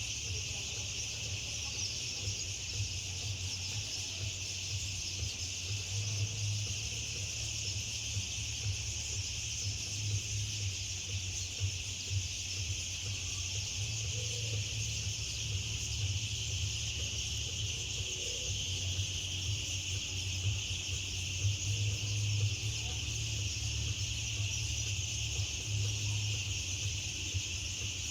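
A large flock of birds chattering together as they settle to roost, making a dense, steady chorus of high calls. A low rumble runs underneath.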